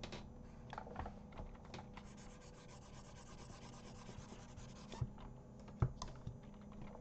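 Faint clicking and light rubbing from computer input while colouring in a drawing program: scattered sharp clicks, the strongest about five and six seconds in, and a stretch of fine rapid scratching in the middle, over a faint steady hum.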